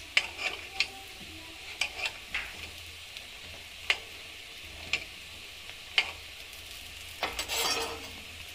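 Oil sizzling steadily around appe frying in the cups of an appe pan. Scattered sharp clicks of a metal spoon against the pan come about once a second as the appe are turned, with a longer clatter about seven and a half seconds in.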